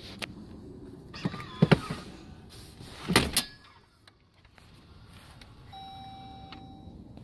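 Clicks and clunks from a 2022 Jeep Wagoneer's second-row seat mechanism as the seat is released and tipped forward for third-row access. The heaviest thud comes about three seconds in. Near the end a single steady electronic chime tone sounds for about a second, typical of the car's door-open warning.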